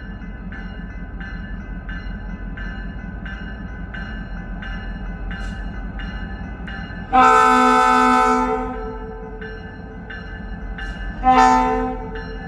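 Diesel freight locomotive running with a low rumble while its bell rings steadily about twice a second. The multi-tone air horn sounds one long blast, then a short one a few seconds later.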